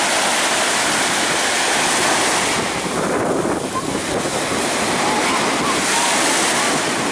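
Steady wash of sea waves, with wind buffeting the microphone.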